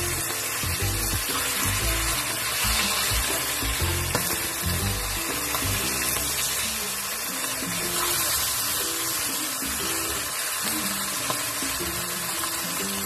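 Tofu frying in hot cooking oil, a steady dense sizzle, with background music playing over it.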